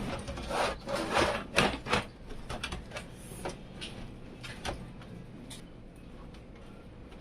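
Handling noises: a quick run of clicks, knocks and rubbing in the first two seconds, then lighter scattered clicks.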